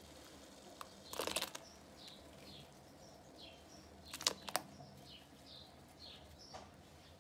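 Handfuls of diced potato dropped into a pot of boiling water: a splash about a second in and two sharper splashes around four seconds in. Faint bird chirps repeat in the background throughout.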